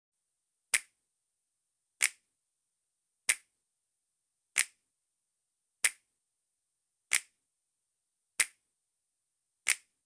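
A sampled finger snap, played eight times at an even pace of about one every 1.3 seconds, as the bare opening of a beat.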